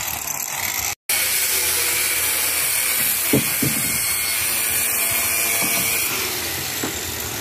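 A power tool running steadily with a hissing, high-pitched noise, cut off for an instant about a second in. Two short knocks come at about the middle.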